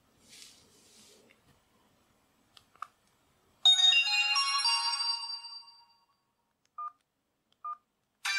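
Sony Ericsson W380i mobile phone: after a faint rustle and two small clicks, it plays a short bright chiming jingle that starts suddenly and fades away over about two seconds, then gives two short beeps; the next ringtone starts right at the end.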